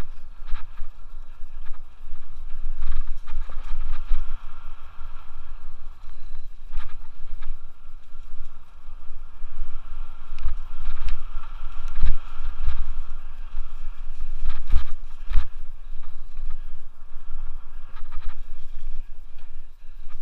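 Scott Aspect 770 mountain bike rolling fast down a leaf-covered dirt singletrack: tyre noise on dirt and leaves, scattered rattles and knocks from the bike over bumps, with wind buffeting the helmet camera's microphone as a loud, uneven rumble.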